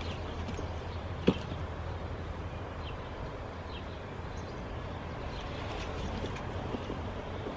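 Steady low hum inside a car's cabin, with one sharp click about a second in as something is handled in the seat.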